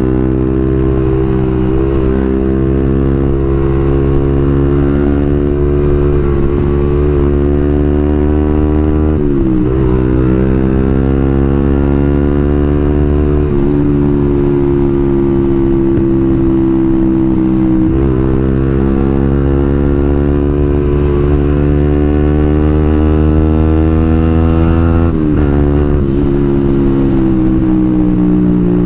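Suzuki GSX-R150's single-cylinder engine breathing through a WRX New GP K2 aftermarket silencer while riding. The pitch climbs and sags with the throttle, with about four brief dips as the revs drop and pick up again.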